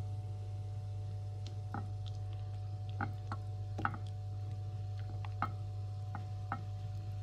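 Wet squelches of a hand squeezing and turning chicken pieces in thick flour batter in a glass bowl: about a dozen short, soft squishes at irregular intervals. A steady low hum runs underneath.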